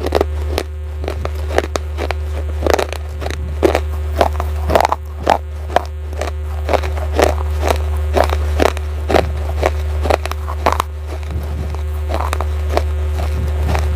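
Pieces of baked clay pot being bitten and chewed close to the microphone: a quick, irregular run of sharp, dry crunches, over a steady low hum.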